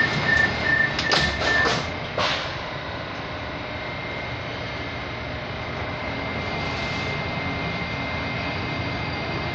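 Moskva-2020 metro train's doors closing: a steady warning tone, then several sharp knocks as the doors shut between about one and two seconds in. After that comes the steady running hum of the car as the train starts to pull away.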